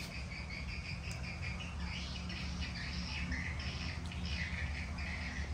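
Birds chirping: a quick, regular run of short chirps that turns more irregular over the second half, over a steady low hum.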